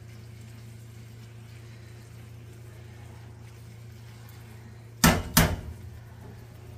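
Metal tongs quietly stirring wilted greens in a cast iron skillet, then two sharp metal clanks about five seconds in, half a second apart, as the tongs are knocked against the skillet.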